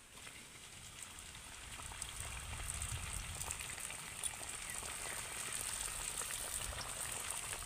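Stuffed pitha pastry deep-frying in hot oil in a wok: a bubbling sizzle with small crackles. It grows louder over the first two seconds or so as the pastry is slid into the oil, then holds steady.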